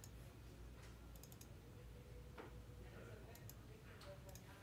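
Near silence: a few faint scattered clicks over a low steady hum.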